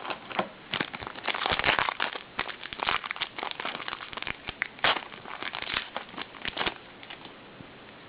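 Crinkling and crackling of a trading-card pack wrapper being handled and torn open, a quick irregular run of crackles that stops about a second before the end.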